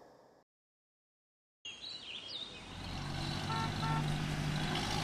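After a brief fade and a second of dead silence, a cartoon bus's engine sound effect comes in, running steadily and growing louder, with a couple of bird chirps as it starts and two short beeps near the middle.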